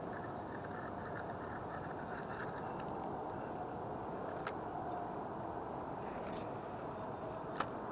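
Steady outdoor background noise with faint light ticking in the first few seconds and two sharp clicks, one about halfway and a louder one near the end, as fishing line and a spinning reel are handled.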